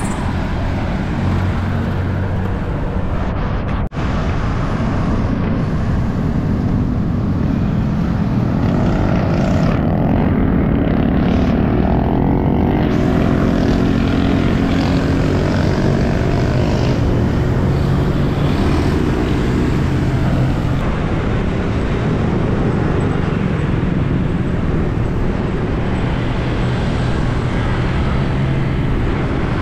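Steady wind rush on the microphone of a camera riding on a moving bicycle, mixed with road traffic noise and the hum of a passing motor vehicle's engine through the middle stretch. The sound cuts out briefly about four seconds in.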